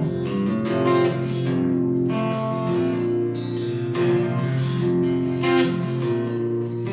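Acoustic guitar strummed steadily in an instrumental passage of a live folk song, with no singing.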